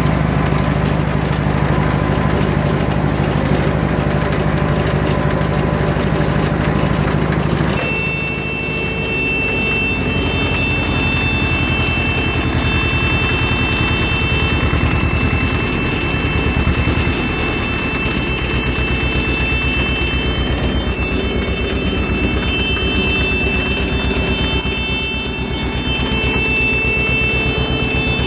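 Tractor engine running steadily while turning the PTO shaft of a Zeppelin 70 chain round baler. About eight seconds in the sound changes abruptly, and a steady high whine from the machinery joins the engine.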